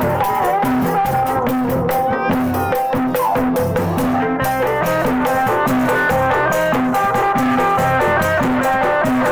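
Kuda renggong street-band music: a plucked electric guitar melody over a steady beat on a large bass drum and hand drums.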